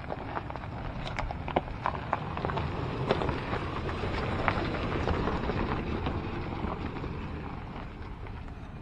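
Four-wheel drive moving slowly along a rough off-road track: a steady rumble with many small crackles and pops from the tyres on the track surface, louder through the middle.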